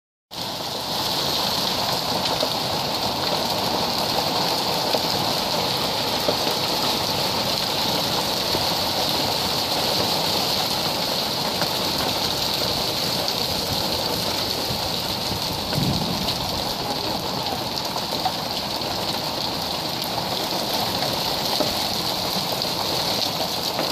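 Hailstorm: a steady, dense patter of small hailstones striking brick patio pavers and the lawn, made up of countless fine ticks.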